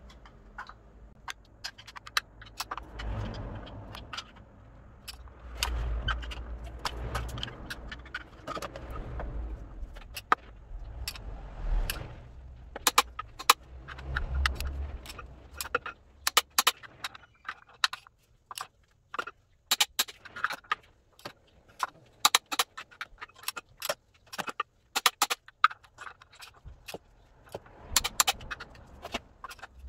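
Torque wrench ratcheting and metal clinking as the new dual-mass flywheel bolts are tightened. At first there are low handling noises, then from about twelve seconds in rapid runs of sharp ratchet clicks and clinks.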